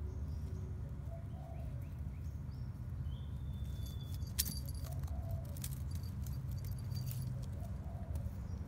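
Small bell on a cat's collar jingling in short bursts as the cat swats at and wrestles a twig, over a steady low background rumble.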